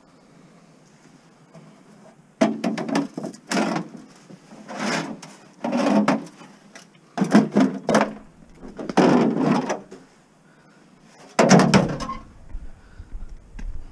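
Lengths of rain gutter scraping and clattering as they are pushed along the floor of a minivan's cargo area, in a series of short shoves, with a heavier knock near the end.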